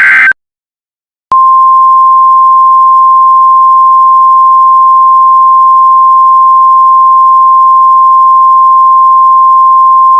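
The tail of an EAS SAME digital header burst, a short warbling data squeal, cuts off. After about a second of silence, the single steady 1050 Hz NOAA Weather Radio warning alarm tone starts and holds at full loudness, signalling that a warning message follows.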